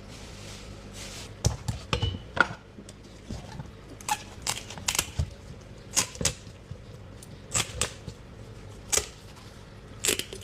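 Knife knocking and clicking on a cutting board while a fish is filleted: irregular sharp knocks, some in quick pairs, over a low steady hum.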